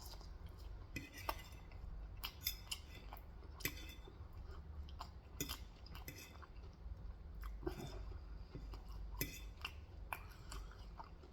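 Faint chewing of Korean fried chicken, with scattered short crunches and clicks every second or so.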